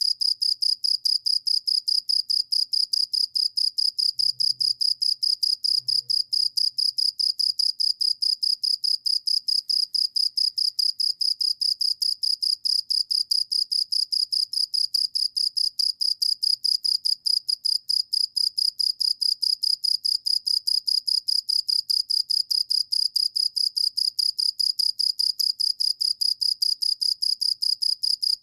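A cricket chirping loudly and without pause: a high-pitched, rapid, evenly pulsed trill.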